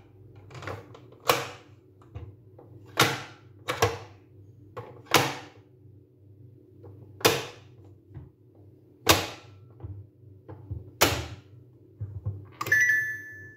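Plastic pop-up animal toy's lids snapping shut one after another as the figures are pressed back down: about eight sharp plastic clicks, a second or two apart. Near the end the toy gives a brief electronic tone.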